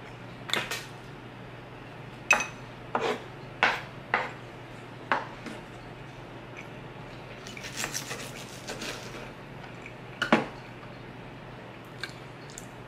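Metal spoon and fork clinking and scraping while rice and steak are scooped up from a wooden cutting board: a string of sharp separate clicks, with a short rush of scraping about eight seconds in.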